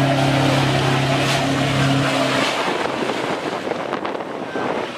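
Off-road 4x4 vehicle engine running hard at a steady pitch, dying away after about two seconds and leaving a rushing noise.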